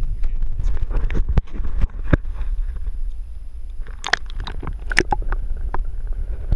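Water splashing and sloshing in two bursts, about a second in and again about four seconds in, as a bass is lowered into the water by hand and released, over a steady low rumble of wind on the microphone.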